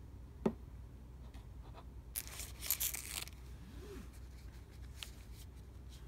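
A sharp knock about half a second in, then a thin plastic wrapper rustling and tearing open for about a second as a disposable face mask is taken out of its packet, with a few light clicks near the end.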